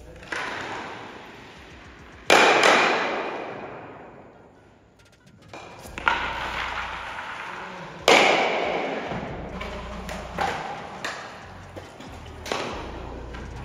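Ice stocks thrown down a hard hall floor: each lands with a thud and slides away with a long grating rush that fades over a couple of seconds, two of them much louder than the rest. A few short sharp clacks of stocks striking stocks near the target.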